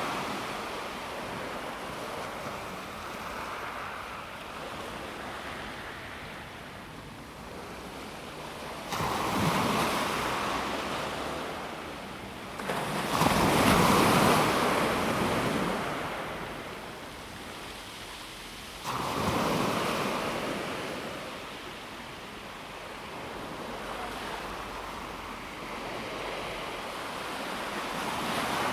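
Calm sea waves washing onto a pebble beach. Three larger waves break with a sudden rise, about a third of the way in, near the middle and about two-thirds in, and each one fades away over several seconds.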